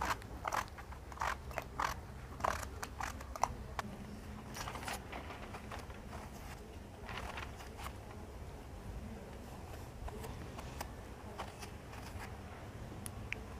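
Short scraping strokes of a small hand blade peeling the skin off an eggplant, several close together at first, then fewer and fainter, over a faint steady low hum.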